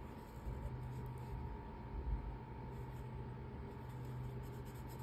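Steady electrical hum with a thin high tone, under faint felt-tip marker strokes on paper, and a soft low thump about two seconds in.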